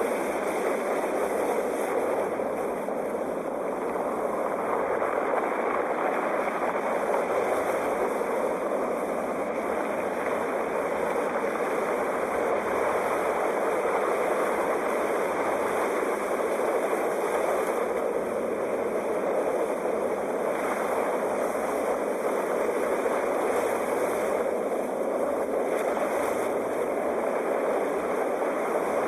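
Sea waves: a continuous, steady rush of surf.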